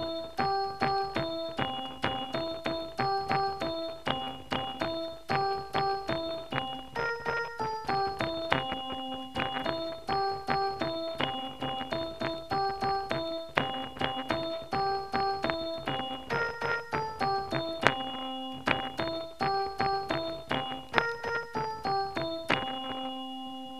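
Keyboard music: a repeating melody of short, clean notes over chords, ending on a held chord that rings out near the end.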